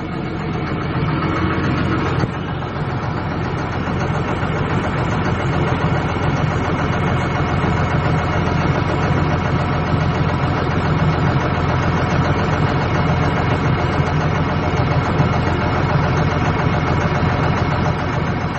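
Backhoe loader's diesel engine running steadily at a low, even speed, with a slight change in tone about two seconds in.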